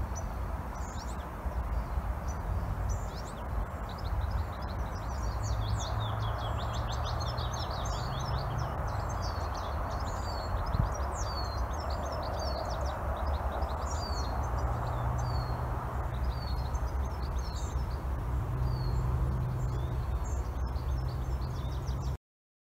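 Songbirds chirping and trilling in a meadow, with a rapid run of trills in the middle, over a steady low rumble and hiss. It all cuts off suddenly near the end.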